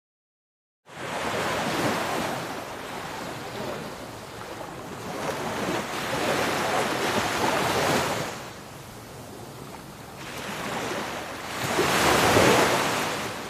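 Sea surf breaking on the shore. The rushing noise starts about a second in and swells and ebbs three times as waves come in, and the last surge is the loudest.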